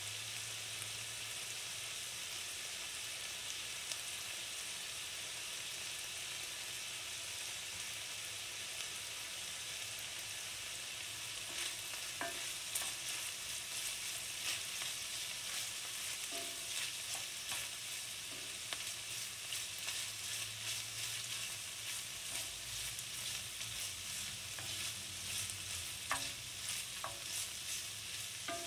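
Sliced onion and smoked bacon sizzling steadily in olive oil in an enamelled pan. From about halfway, a wooden spoon stirs and scrapes them, adding irregular knocks and clicks over the sizzle.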